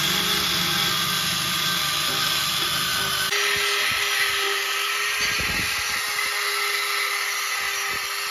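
A power tool running steadily. About three seconds in its sound changes abruptly to a thinner whine with a steady hum.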